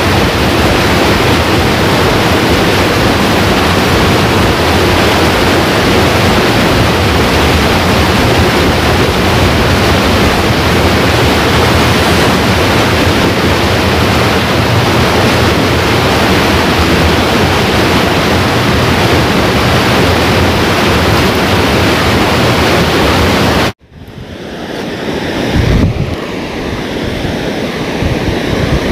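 Steady rush of flowing river water, a full, even hiss. About 24 seconds in it cuts off and gives way to a quieter rush of water pouring over a low weir, with gusts of wind buffeting the microphone.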